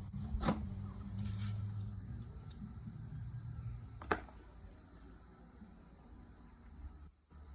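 Crickets trilling steadily in the background, with a low rumble and two sharp clicks, the louder one about four seconds in.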